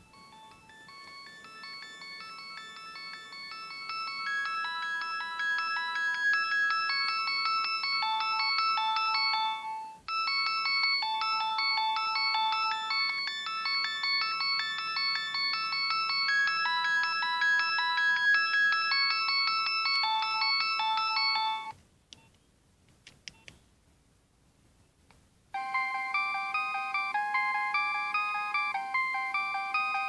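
Nokia 6610i mobile phone playing a polyphonic ringtone through its small loudspeaker: a quick electronic melody that grows louder over the first few seconds and starts over about ten seconds in. The tune stops about 22 seconds in, a few faint clicks follow, and a different ringtone starts about three seconds later.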